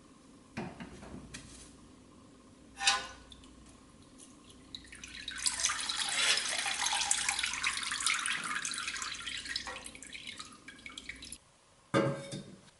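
Liquid streaming off a pressed-steel toy cab held over a plastic tub and splashing back in for about six seconds, breaking up into drips as it thins. Two light knocks of tongs and metal against the tub come before it, and a sharp knock near the end as the steel part is set down on a wooden workbench.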